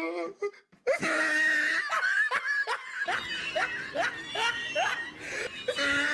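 People laughing hard: a burst of high laughter about a second in, then a run of short falling 'ha' pulses, about three a second, with another burst of laughter near the end.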